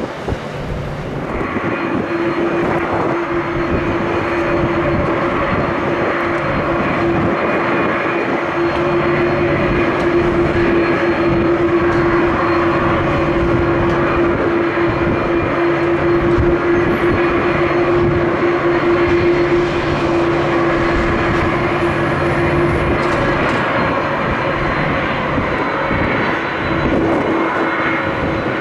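Jet airliner engines running at taxi thrust close by: a steady rushing noise with a steady hum that sets in about two seconds in and stops a few seconds before the end.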